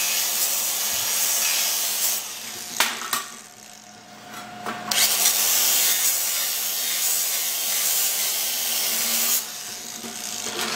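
Angle grinder with an abrasive disc grinding the zinc coating off galvanized steel, done so that the burning zinc does not cause spatter and pinholes in the weld. The grinding is steady and loud, drops away for about two seconds around three to five seconds in, then picks up again and stops about nine and a half seconds in.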